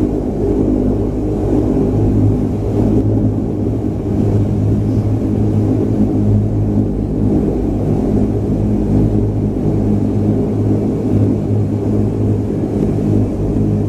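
De Havilland Canada Dash 8-300's Pratt & Whitney Canada PW123 turboprop engines and propellers running steadily, heard from inside the cabin as a loud, even low hum with a strong steady tone.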